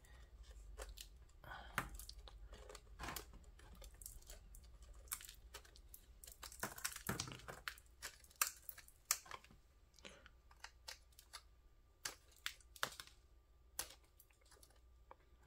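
A thin metal pick scraping and chipping caked, dried mud off an RC car's chassis: faint, irregular scratches, crunches and sharp ticks as flakes of dirt break away.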